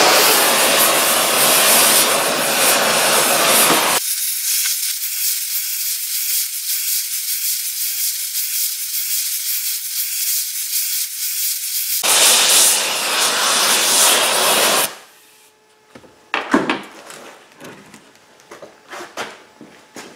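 Gas torch flame hissing against a cast iron exhaust manifold, post-heating the fresh weld to ease the stress in it. The hiss thins to a higher sound from about four to twelve seconds in, then cuts off about fifteen seconds in, followed by a few sharp clanks of metal tools set down on a steel bench.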